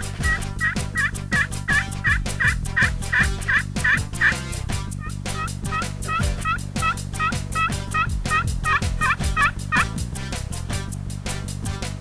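Turkey calls: a long series of evenly spaced notes, about three a second, in two runs with a short break between them, over background music with a steady beat.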